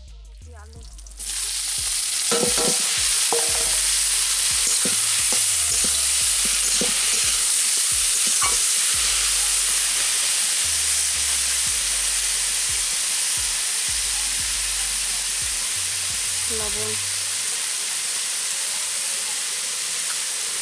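Shredded cabbage and potato dropped into hot oil in a wok, setting off a loud, steady sizzle that starts suddenly about a second in. A metal spatula stirs and scrapes the vegetables around the pan now and then.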